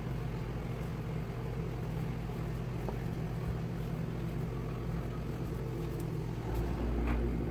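A steady low mechanical hum, like a motor or appliance running, swelling slightly near the end.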